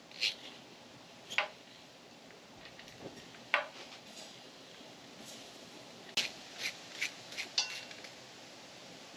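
Light metallic clinks of hand tools and bolts on metal while the starter is being unbolted from a small-block Chevy 350. The clinks come one at a time at first, then five in quick succession about six seconds in.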